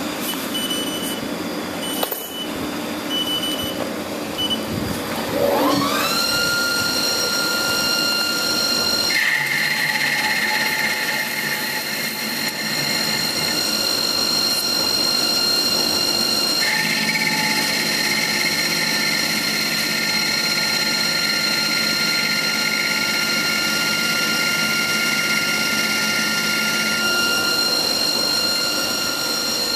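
HAAS TL-3 CNC lathe spindle spinning up with a rising whine about five seconds in, then running at speed with a steady high whine while the tool turns aluminium bar stock. Twice a hiss joins it for several seconds as the tool works, the second time for about ten seconds.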